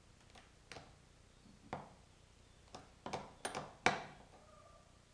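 Scattered sharp metallic clicks of a wrench working a self-locking nut and washer tight. The clicks are sparse at first and come closer together and louder in the second half.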